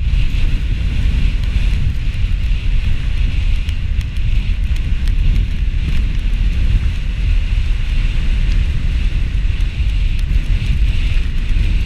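Wind buffeting a GoPro's microphone as a skier runs downhill at speed, a steady loud rumble, with the continuous hiss of skis scraping over snow.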